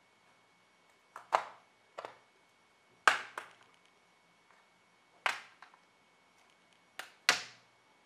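Dell XPS 15 base cover's retaining clips snapping loose as a plastic opening tool pries around its edge: about five sharp clicks spread over several seconds, some coming in quick pairs.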